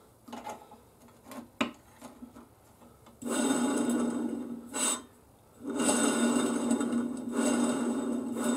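Steel tube spun by hand on the small roller bearings of a homemade static wheel balancer, making a steady rolling whir with a low hum. The whir stops for about a second near the middle and then starts again. A few light clicks come before it starts.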